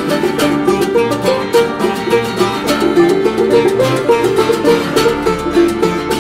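Acoustic folk music: a plucked string instrument picking a quick, steady stream of notes.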